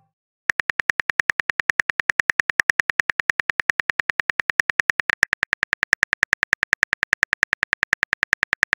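Simulated phone-keyboard typing sound effect: short, evenly spaced key clicks at about eight or nine a second, starting about half a second in.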